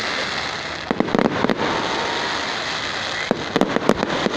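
Fireworks display: two quick volleys of crackling reports, one about a second in and one near the end, over a steady rush of noise.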